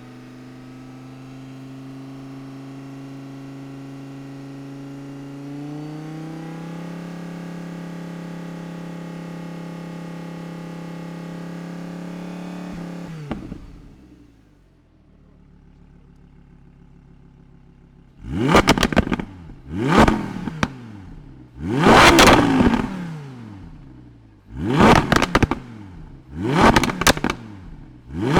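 Audi R8 engine running steadily while the car stands still, its idle stepping up slightly about six seconds in, then dropping back to a quieter low idle. From about two-thirds of the way in, the engine is revved in a series of sharp throttle blips, about six, each rising and falling quickly, louder than the idle.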